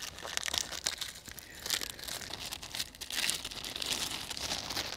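Clear plastic bag crinkling as it is handled and folded in the hands, a run of irregular crackles.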